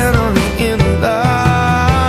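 Music: a rock song with guitar and a steady drum beat, its melody line wavering in pitch.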